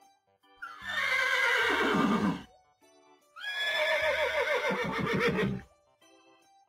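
A horse whinnying twice, each call about two seconds long. Each starts on a high squeal and falls into a lower, trembling finish. Quiet background music plays underneath.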